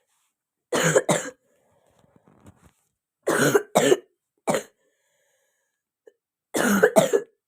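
A girl coughing in four short fits of one to three coughs each, a few seconds apart. It is the lingering cough of a cold she has had for two weeks.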